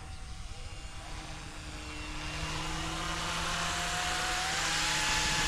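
Goosky E2 200-size scale RC helicopter flying in low and close: its motor whine and rotor noise grow steadily louder over the last few seconds, the whine dipping slightly in pitch and rising again.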